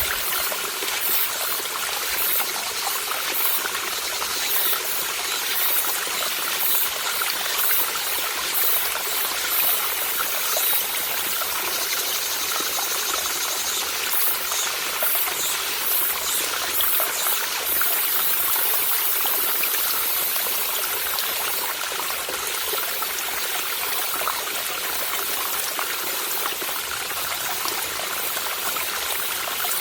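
Small mountain stream trickling and babbling steadily over rocks. Brief high chirps sound repeatedly above it, and a steady high cicada buzz comes in for a few seconds past the middle.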